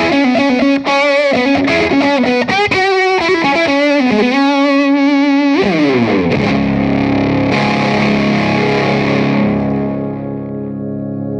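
Electric guitar through a Spaceman Secret Mission IV pedal with the guitar's volume knob rolled down, the drive cleaned up to a lightly distorted tone. Lead phrases with wobbling vibrato, then about five and a half seconds in a slide down into a chord that rings out and fades.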